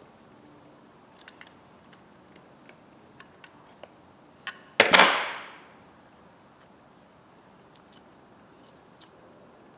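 Small metallic clicks of a pair of spring-loaded diagonal pliers being handled and worked, with one sharp metallic clank about five seconds in that rings out for about a second.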